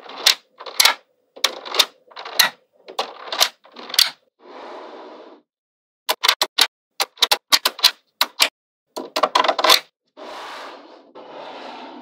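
Small magnetic balls snapping together with sharp clicks, including a quick run of clicks in the middle. Twice the balls rattle against one another for about a second.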